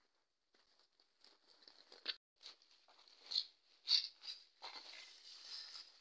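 Dry bean pods rustling and crackling as they are emptied from a sack onto a tarp: scattered rustles that thicken into a denser, continuous rustle near the end.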